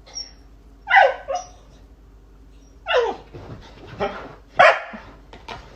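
A dog barking: a run of short, sharp barks at irregular intervals, some in quick pairs, the loudest about a second in and again at about four and a half seconds.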